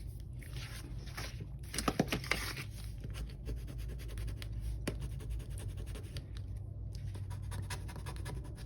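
A small hand tool is rubbed over a clear sticker on planner paper to press it down, giving scratchy rubbing strokes and small ticks of paper handling.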